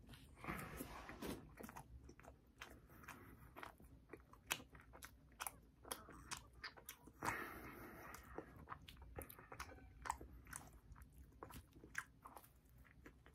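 Quiet chewing of a mouthful of chocolate-glazed eclair, with many small mouth clicks and two short, noisier stretches of chewing.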